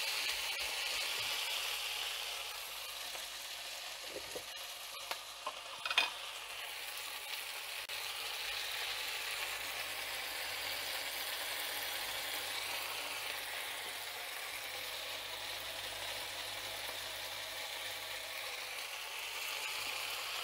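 Chopped vegetables sizzling steadily in hot oil in a frying pan, with a few knocks of a wooden spoon against the pan, the sharpest about six seconds in.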